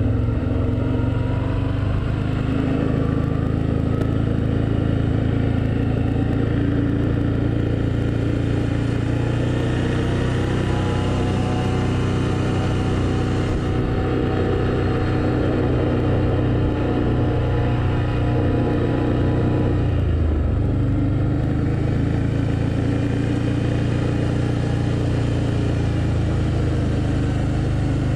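Can-Am Outlander ATV engine running steadily while riding along a gravel road. The engine note eases briefly about two-thirds of the way through, then picks up again.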